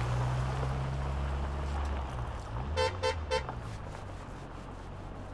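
A car's engine hums as it pulls away, then its horn gives three short toots in quick succession a little under three seconds in, and the engine sound dies away.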